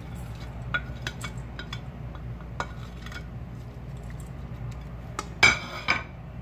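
Nylon spatula scraping chopped vegetables off a plate into a stainless steel mixing bowl and stirring, with scattered light clicks and taps. Near the end comes a louder ringing metallic clatter against the steel bowl, twice in quick succession.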